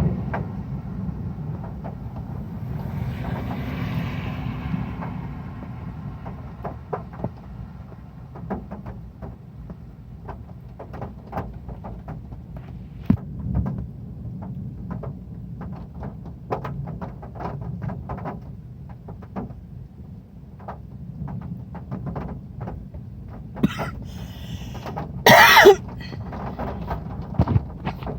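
Heavy rain falling on a metal roof: a steady low rumble with many separate sharp drop ticks. A short, loud burst of noise comes about 25 seconds in.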